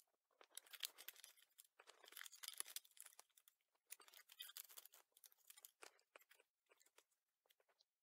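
Faint rustling and crinkling of torn paper pieces being folded up and stacked by hand onto a small digital scale: a run of quick papery crackles that thins out near the end.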